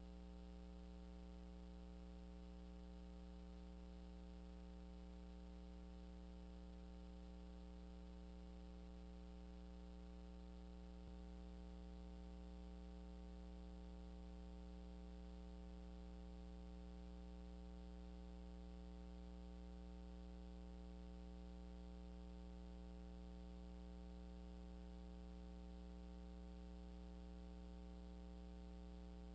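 Faint, steady electrical mains hum with a stack of even overtones; nothing else stands out above it.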